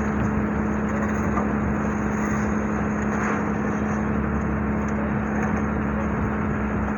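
Steady drone of a running engine-driven machine, with a constant low hum that holds unchanged throughout.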